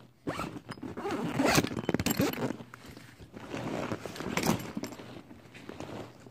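Zipper on the main pocket of a nylon backpack being pulled open in two long raspy runs, with the bag's fabric rustling as it is handled.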